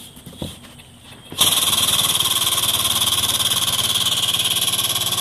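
Air-driven hydraulic pump switched on about a second and a half in, then running steadily with a fast, even pulsing and a high hiss. It is pumping oil into a test oil rail whose nicked O-rings leak, so it holds only a couple hundred PSI.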